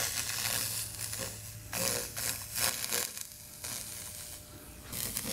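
TIG Brush electrolytic cleaning wand sizzling and crackling as its fluid-soaked tip is worked over a Porsche exhaust pipe, the phosphoric-acid solution boiling off as steam. The sizzle comes in uneven bursts and eases off from about three seconds in, then picks up again near the end.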